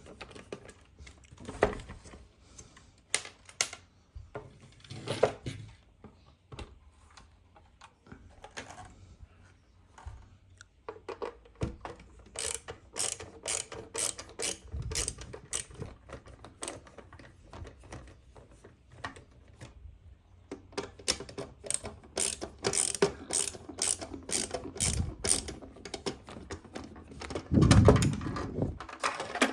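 Hands working a 1:18 diecast model car and its packaging: scattered clicks and knocks, then long runs of rapid small ratcheting clicks, with a heavier knock near the end.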